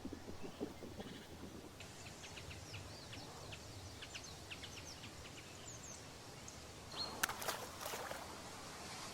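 Birds chirping outdoors, many short quick calls over a steady low background hum, with a louder cluster of sharp clicking sounds about seven seconds in.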